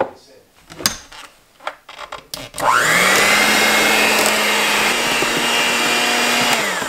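A few light knocks, then an electric hand mixer starts with a rising whine about two and a half seconds in, runs steadily while beating a pot of soft mashed potatoes, and winds down just before the end.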